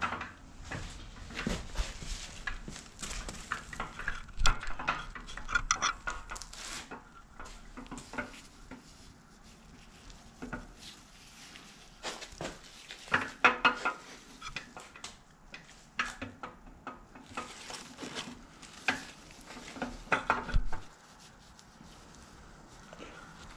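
Irregular metal clinks and knocks as the old camshaft of a GM LQ4 V8 is eased out of the block by hand on a bolt-on handle.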